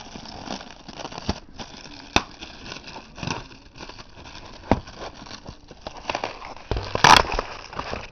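Handling noise from cardboard firework tubes and packaging being moved about close to the microphone: rustling with scattered sharp knocks and a louder clatter about seven seconds in.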